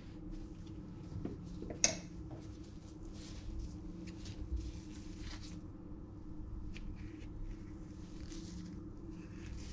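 Kitchen prep handling sounds: a single sharp knock about two seconds in, then soft rustles and scrapes of gloved hands and a kitchen knife cutting into an avocado on a wooden cutting board, over a low steady hum.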